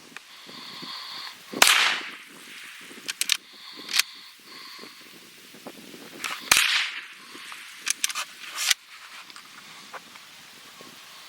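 Two shots from a Henry .22 lever-action rifle, about five seconds apart, each a sharp crack with a short ringing tail. Lighter sharp clicks fall between them.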